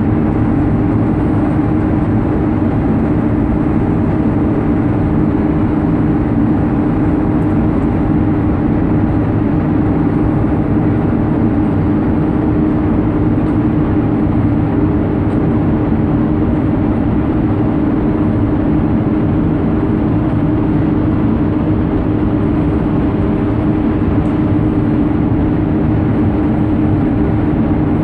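A docked cruise ship's machinery humming steadily: a low rumble with several held tones over it, even in level.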